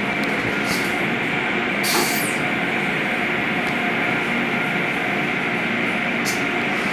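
Automatic car wash tunnel running: high-pressure spray arches hissing water with the steady drone of its pumps and machinery, heard through the viewing-room glass. A short, sharper hiss comes about two seconds in.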